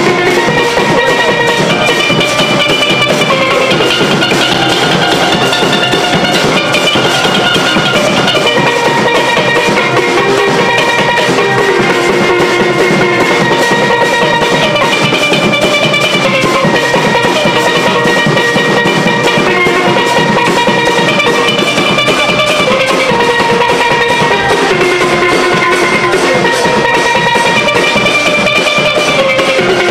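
A small steel band plays a tune on steel pans: a melody of struck, ringing notes over a steady beat.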